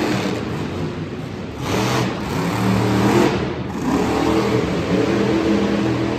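Monster truck engines revving, the engine note rising and falling with surges of louder noise about two and three seconds in.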